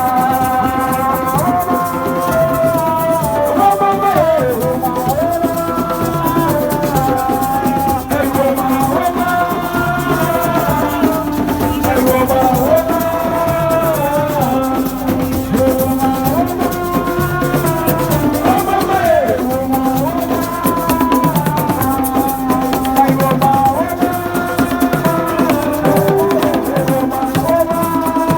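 Music with shaker rattles and drums keeping a steady beat under a gliding melodic line.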